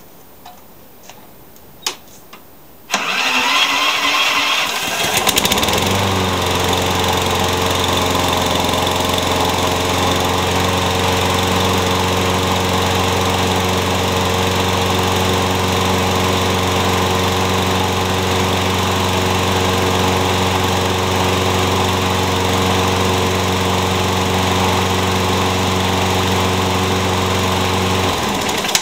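Craftsman push mower's Briggs & Stratton ReadyStart engine cold-started with the key: after a few faint clicks the electric starter cranks for about two seconds, the engine catches and runs at a steady speed for over twenty seconds, then cuts off suddenly near the end.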